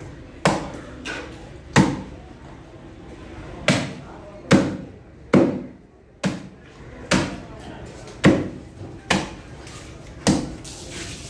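A large knife chopping into a stingray's wing on a wooden chopping block: about a dozen hard chops, spaced irregularly about a second apart.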